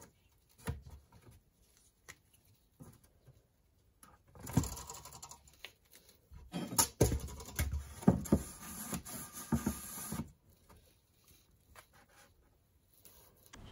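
Handling sounds of measuring out a sheet of extruded polystyrene foam with a tape measure and a metal speed square. A few scattered clicks and taps come first. Then, from about four and a half seconds in to about ten, there are several seconds of scratching with knocks.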